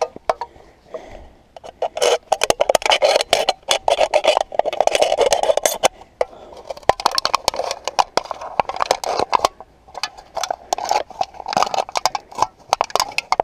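Thin aluminium beer can being cut and torn with the back of a knife, its sides crinkling and crackling in quick irregular bursts as they are bent and peeled open.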